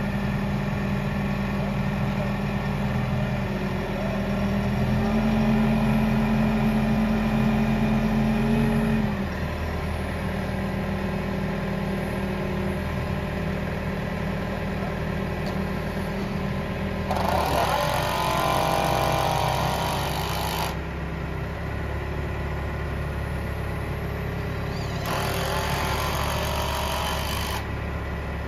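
Genie GTH-5519 telehandler's engine running steadily; about five seconds in it is held at higher revs for a few seconds, then drops back to idle. Twice in the second half a loud hiss comes in for a few seconds and cuts off sharply.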